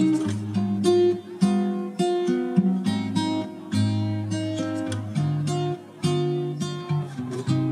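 Background music: acoustic guitar strummed in a quick rhythm, chords struck several times a second.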